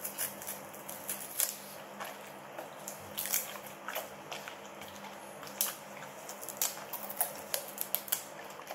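A Samoyed and a Golden Retriever biting and tearing a stalk of fresh celery: irregular crisp crunches and snaps as the stalk and leaves are torn.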